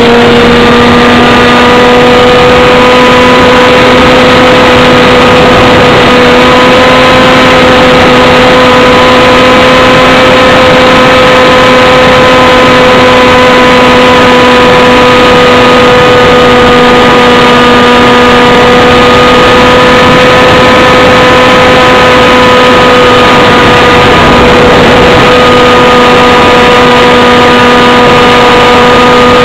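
Small aircraft's motor and propeller running steadily at near-constant pitch, heard loud and overdriven through a camera mounted on the plane, with wind rush.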